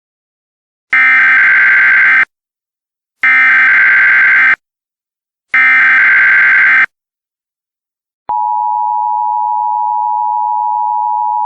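Emergency Alert System header: three identical bursts of SAME data tones, each just over a second long with short gaps between. About eight seconds in, the steady EAS attention tone begins.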